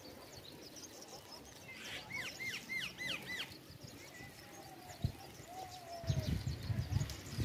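A bird calls a quick run of about six short, arched high notes, over faint scattered chirps of other birds in the distance. A low rumbling noise comes in near the end.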